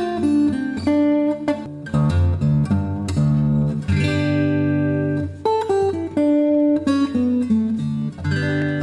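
Acoustic guitar fitted with a Skysonic T-902 pickup, played in a sound test: a run of single plucked notes and short chords, each left to ring.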